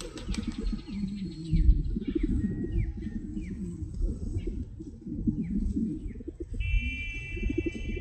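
A flock of feral rock pigeons cooing, a dense low wavering murmur of overlapping coos. Short high falling chirps from another bird come in from about two seconds in, and a steady high whistling tone sounds for about a second near the end.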